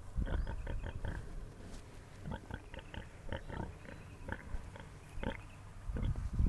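Pigs snoring in their sleep: a quick, irregular run of short, low snores, fainter in the middle and louder again near the end.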